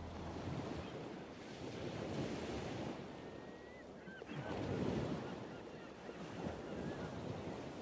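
Ocean surf washing onto a shore, swelling and ebbing in slow surges, with one louder surge about halfway through. A few faint short high chirps sound over it.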